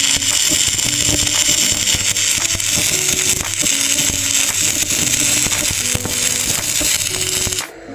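TIG welding arc hissing and crackling steadily, with background music of plucked guitar-like notes. The hiss cuts off abruptly near the end.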